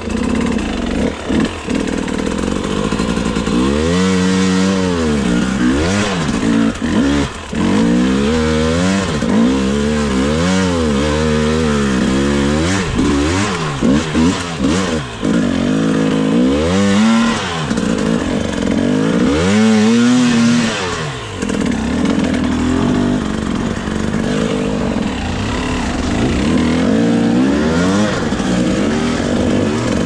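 Enduro dirt bike engine revved over and over, its pitch climbing and dropping in quick repeated blips, then running more steadily for the last several seconds.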